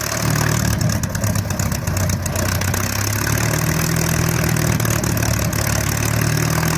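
Large WWII fighter's piston aero engine running steadily at low speed, with a deep, even note.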